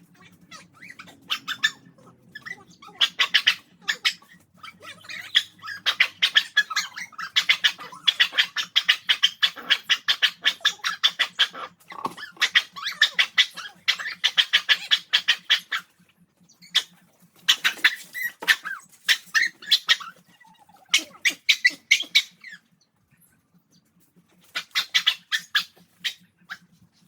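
A dog whining and panting in long runs of rapid, high-pitched pulses, broken by a few short pauses.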